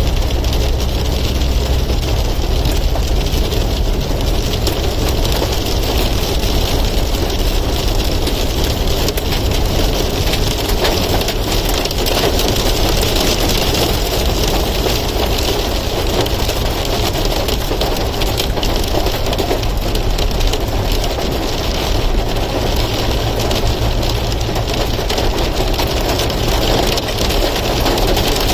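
Hailstones pelting down in a dense, unbroken patter of small impacts, over the low, steady rumble of a vehicle.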